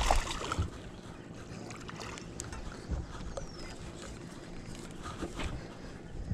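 Faint water and hull noise around a small fishing boat while a small bass is played on a spinning rod, with a few soft knocks and splashes, the last and loudest as the fish is pulled in by hand near the end.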